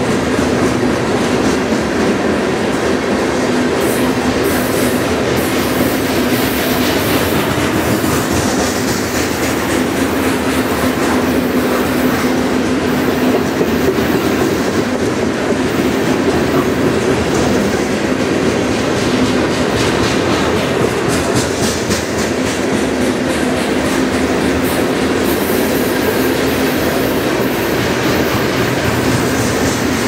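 Freight cars rolling past close by, a steady, loud rumble of steel wheels on the rails that carries on without a break.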